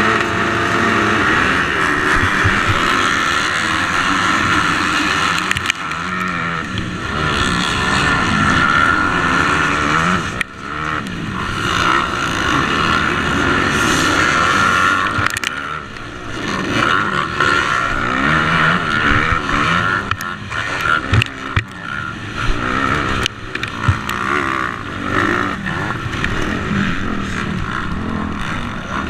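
250cc motocross bike engine running hard around the track, revving up and down as the throttle is worked, with brief drops in engine noise about ten, sixteen and twenty-two seconds in.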